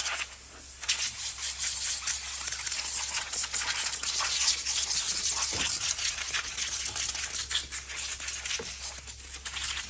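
Can of compressed air sprayed in many short hissing spurts, blowing dust out of a computer's cooling fan and mainboard area.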